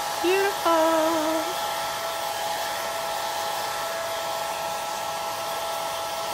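Handheld hair dryer blowing steadily, its motor giving a constant whine over the rush of air, drying chalk paste on a sign. Two short wavering pitched notes, louder than the dryer, come about a second in.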